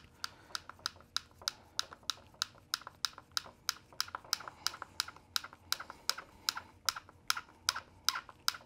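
Light clicking, about four clicks a second, from a small hex driver turning a 2 mm screw into the rear shock mount of an RC motorcycle as it is run in by hand.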